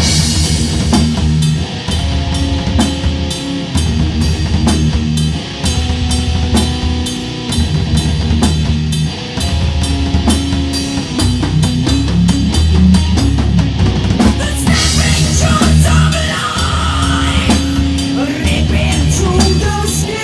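Rock music, the instrumental opening of a heavy rock song: a drum kit keeps a steady beat under a repeating low bass and guitar riff, and the music grows fuller about fourteen seconds in.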